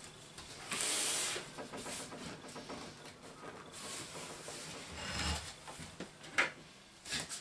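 A cardboard shipping box being opened by hand: cardboard and packing rustling and scraping in several bursts, the longest about a second in, with a couple of sharp knocks near the end.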